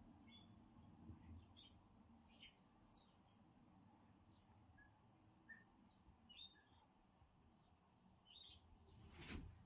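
Near silence with faint, scattered bird chirps, including one quick downward-sweeping whistle, and a single soft knock near the end.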